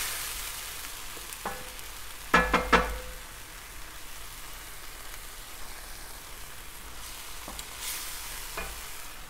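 Thick pepper-and-tomato stew base sizzling gently in an enamelled cast-iron braiser while a wooden spatula stirs and scrapes through it. There is a short, louder burst of scraping and knocking against the pan about two and a half seconds in, and a few single light clicks later.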